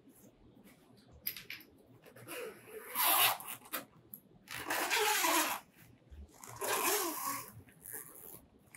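Padded nylon soft recurve bow case rubbed and handled by gloved hands: several rustling, swishing strokes, each about a second long, with quieter scuffs between.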